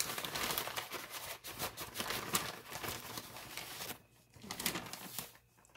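Plastic bag of powdered sugar crinkling and rustling as a cup of sugar is scooped out of it, a quick crackle that goes quiet about four seconds in, with a little more rustling after.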